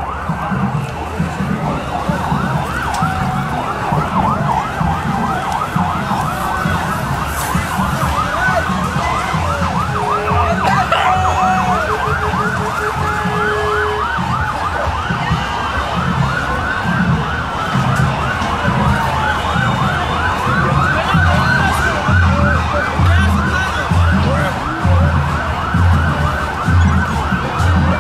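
Police siren in a fast yelp, its pitch swinging up and down several times a second, slowing for a few seconds about halfway through into long rising and falling wails, over a low pulsing rumble.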